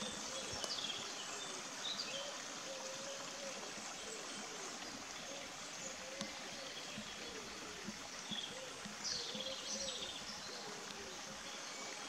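Quiet woodland ambience: a steady faint hiss with scattered bird chirps, a brief flurry of them about nine seconds in.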